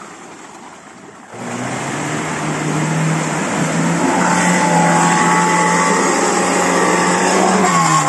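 Lada Niva's engine revving up about a second in and held at high, steady revs under load for several seconds as the car works through an off-road obstacle, then easing off near the end.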